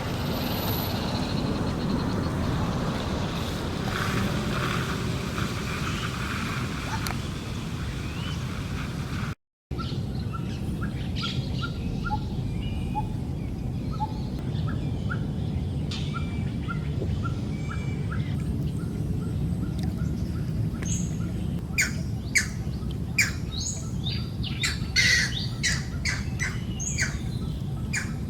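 Birds calling over a steady low outdoor rumble: a run of short, evenly spaced chirps, then louder, sharp squawking calls near the end. The sound cuts out for a moment about a third of the way in.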